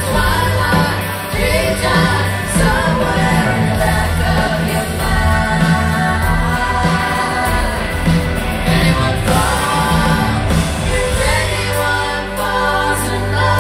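Live rock concert music: a band plays with sung lead and backing vocals over a steady bass line, dipping briefly near the end before the band comes back in.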